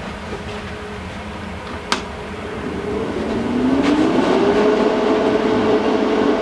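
Hobart Handler 120 MIG welder running with its fan on; a sharp click about two seconds in, then a hum that rises in pitch and settles into a steady, louder hum as the trigger is pulled and the output comes alive. The hum is the sign that open circuit voltage is present.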